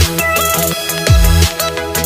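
Electronic background music with a heavy beat and deep bass notes that slide down in pitch on the hits.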